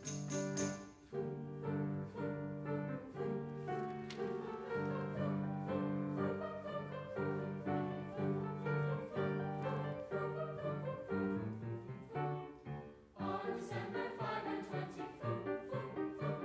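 Church music: held choral and keyboard chords, moving into a busier passage with quicker notes about thirteen seconds in.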